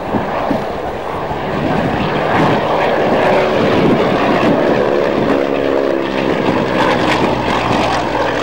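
Piston engine and propeller of a single-engine aerobatic plane flying low past, growing louder about two seconds in and holding a steady engine drone through the second half.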